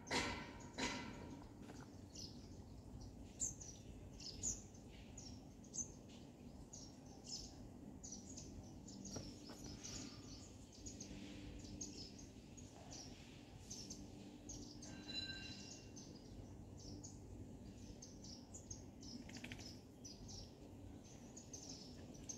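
Birds chirping, many short high calls throughout, over a faint steady low hum. Two short sharp sounds in the first second are the loudest moments, and a brief clearer call comes about fifteen seconds in.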